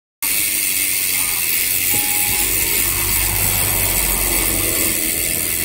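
Steady wind and road noise picked up by an action camera on a moving bicycle, starting suddenly just after the start: a loud hiss over a low rumble.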